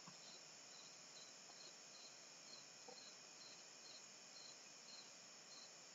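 Near silence with faint insect chirping: a short high chirp repeating about twice a second over a faint steady hiss.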